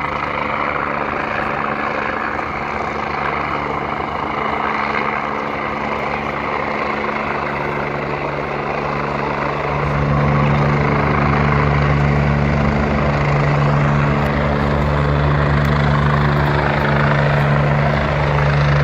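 Medical helicopter's rotor and turbine running steadily as it comes in to land, getting louder about halfway through.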